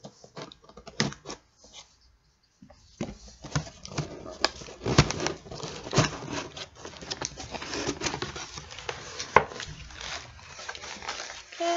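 Cardboard subscription box being opened and handled by hand: irregular scraping, tearing and rustling of cardboard and paper, with many small knocks and clicks.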